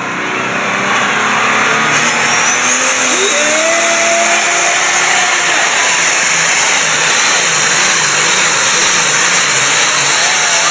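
Turbocharged diesel engine of a John Deere Super Farm pulling tractor running flat out under the load of the pulling sled, after being wound up to full boost. A high whine climbs in pitch about two seconds in, and the engine noise stays loud and steady.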